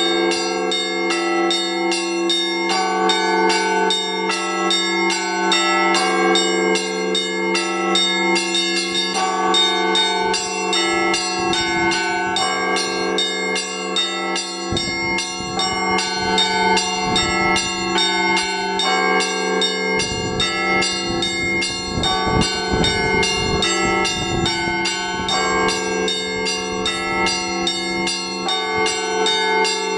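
Russian Orthodox church bells rung by hand from ropes in the Rostov tradition: many bells of different sizes struck in an unbroken, layered peal over a steadily sounding deep bell.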